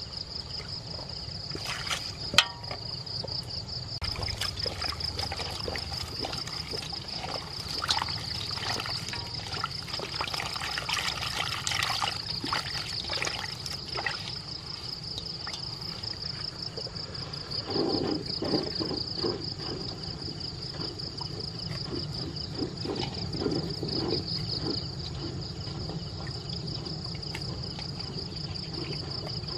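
Hands swishing and sloshing insects in water in a metal basin, with dribbles and small splashes, over a steady high pulsing insect drone. A single sharp knock sounds about two seconds in.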